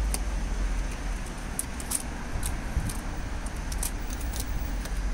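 A Ford Focus Mk2 windscreen's rubber moulding being peeled away from the edge of the cracked glass, giving scattered small sharp clicks and ticks over a steady low rumble.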